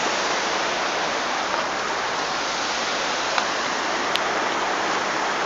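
Steady rush of water spilling over a low weir, with two faint clicks a little past the middle.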